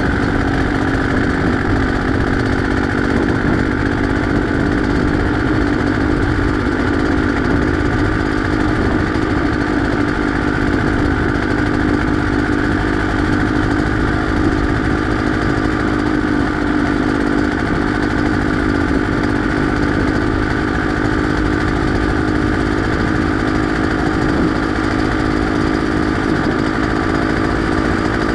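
Beta X-Trainer 250's two-stroke single-cylinder engine running steadily under way, its pitch holding nearly level with only slight drift, over a constant low rumble.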